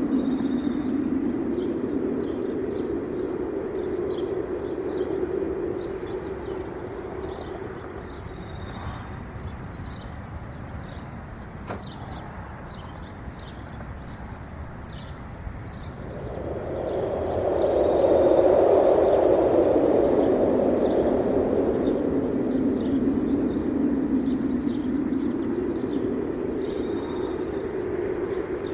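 Wind blowing in slow gusts, building to its strongest gust about two-thirds of the way through and then easing. Small birds chirp in short, repeated high notes throughout.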